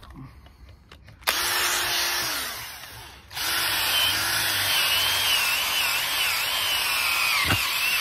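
Power drill boring through a bolt hole to widen it because the bolt is still too tight. It runs in two spells, starting about a second in with a short break around three seconds, its motor whine wavering as the load changes.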